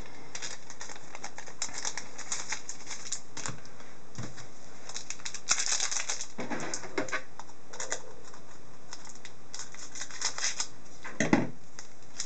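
Trading-card pack being handled: a foil wrapper crinkling and cards clicking and sliding against each other in short irregular bursts. A denser rustle comes about halfway through and a short thump near the end.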